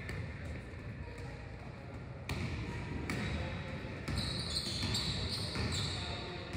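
Basketballs bouncing on a hardwood gym floor during a pickup game, with sneakers squeaking on the court about four seconds in and players' voices echoing in the gym.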